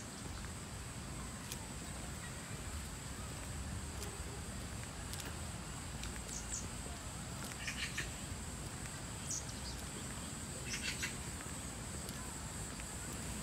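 Outdoor insect drone, a steady high-pitched buzz, with a few short chirps scattered through it over a low rumble.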